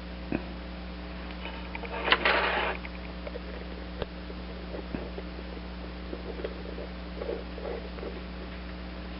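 Small handling sounds of carburetor parts and tools on a workbench: a few light clicks and taps, and a short scraping rustle about two seconds in, the loudest part, over a steady electrical hum.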